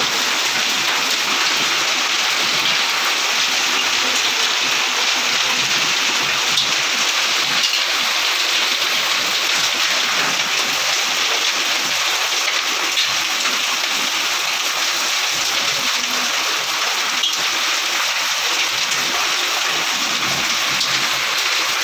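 Heavy rain with hail pouring onto a brick courtyard and corrugated roof sheeting: a steady, dense hiss with a few scattered sharper ticks.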